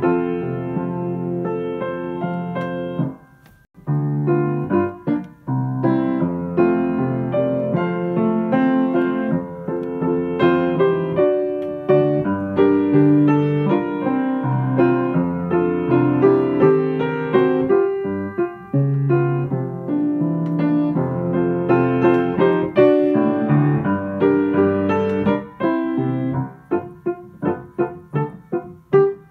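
Background piano music, a run of notes with a couple of short breaks.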